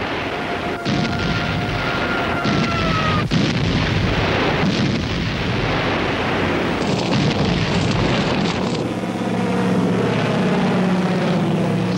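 Bombing sounds: a slowly falling whistle for about three seconds that ends in a sharp bang, then a dense rumble of explosions. From about nine seconds in comes the steady drone of aircraft engines.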